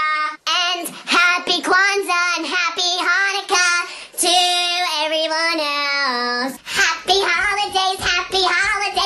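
A child's high-pitched voice singing into a karaoke microphone, holding notes that slide up and down, with short breaks between phrases.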